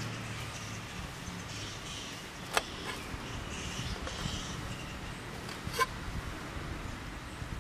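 A kitchen knife cutting through a whole deep-fried cauliflower on a stainless steel plate, the blade clicking sharply against the steel twice, about three seconds apart, the second click ringing briefly. A steady low hum runs underneath.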